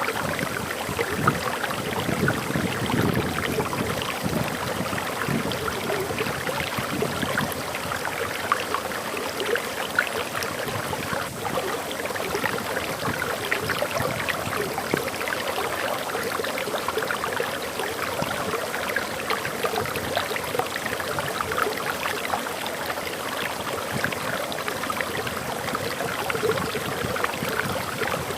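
Small forest waterfall splashing and gurgling steadily over rocks.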